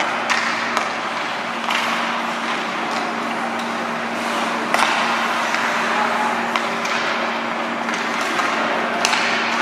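Ice hockey game in play: skates scraping on the ice, with scattered sharp clacks of sticks and puck over a steady low hum.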